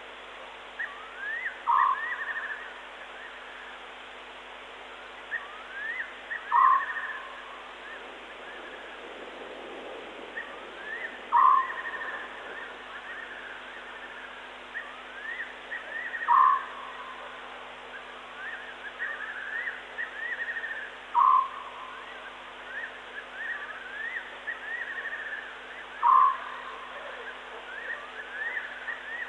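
Night-time animal calls: one short call repeats about every five seconds, with quick rising chirps in between.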